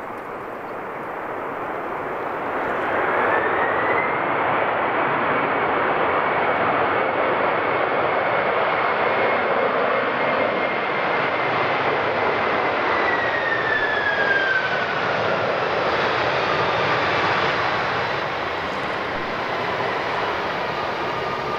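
Airbus A380's jet engines during the landing roll: a loud, steady rush of jet noise with a thin whine that climbs in pitch over the first few seconds, holds, then glides down a little past halfway as the aircraft passes.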